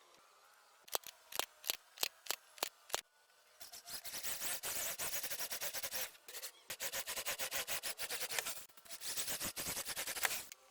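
Hand work on a piece of wood: about seven sharp taps, then three long runs of rapid scraping strokes, like hand sanding or filing the wood.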